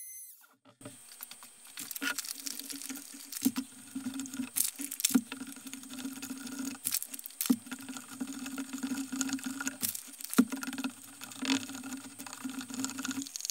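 A stick stirring wet plaster in a plastic tub: repeated scraping and sloshing strokes, with sharper knocks as the stick strikes the tub's sides.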